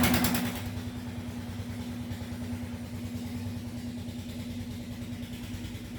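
Generator engine running steadily at a constant speed. A louder, closer diesel engine's clatter fades out in the first half second.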